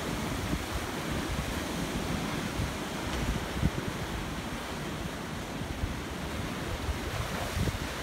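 Atlantic Ocean surf washing and breaking against black lava rocks, a steady rushing, with wind buffeting the microphone in low rumbles.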